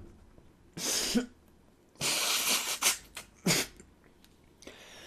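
A man coughing and clearing his throat in three bursts, the longest nearly a second long about two seconds in, after a drink of milk and pickle-juice Bloody Mary mix has gone up his nose.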